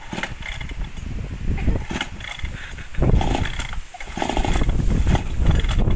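Hard-starting two-stroke chainsaw being pull-started by hand, its starter cord yanked again and again so the engine turns over. The pulls grow louder and longer about three seconds in and again from about four seconds on.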